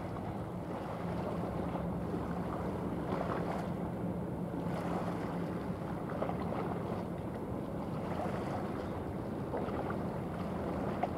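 A 141 m container ship passing close under way: a steady low hum from the ship over a continuous rush of water along the hull, with wind on the microphone.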